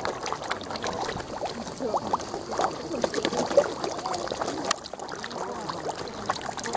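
Koi and carp crowding at the water's surface, their mouths gulping open and shut, making a busy, continuous mix of many small wet smacks, slurps and splashes.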